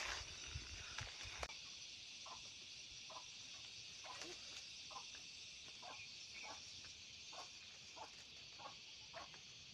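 Steady high-pitched chirring of insects in dry grassland, faint, with soft short ticks about once a second over it.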